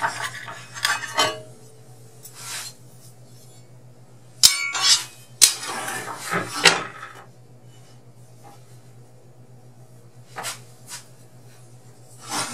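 Metal clinks and rattles of tools and parts being handled on a metal table saw top while the saw is set up for an angled cut, with two sharp metallic knocks about four and a half and five and a half seconds in.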